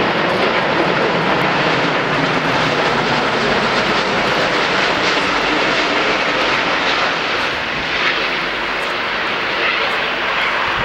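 Jet airliner's engines running loud and steady, a broad, even roar with a slight easing about eight seconds in.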